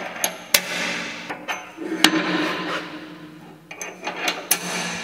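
Hand work on a steel rotary tiller: several sharp metal clicks and knocks, with rubbing and scraping between them.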